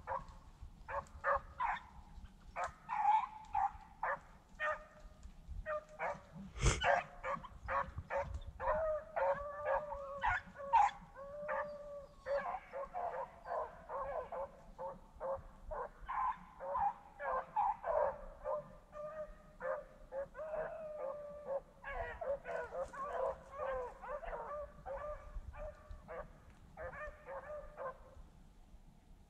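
A pack of hunting dogs baying and howling in long, overlapping cries as they run a rabbit through the brush. A single sharp crack comes about seven seconds in.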